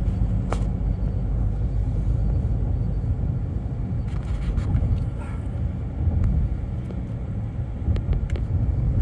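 Car cabin noise inside a moving SUV: a steady low road and engine rumble, with a few light clicks.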